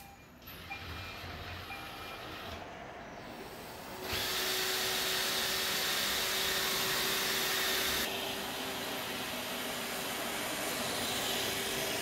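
iRobot Roomba robot vacuum starting its cleaning run: at first only faint motor noise, then about four seconds in its vacuum motor and brushes come up to full with a steady hum under a hissing rush. The hiss eases a little about eight seconds in as it keeps running.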